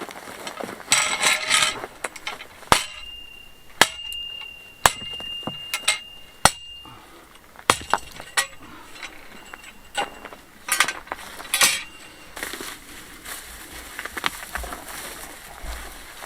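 Irregular sharp metallic clinks and knocks, a dozen or so, some ringing briefly, as metal strikes hard objects during outdoor work. Two short bursts of scraping and rustling come in between.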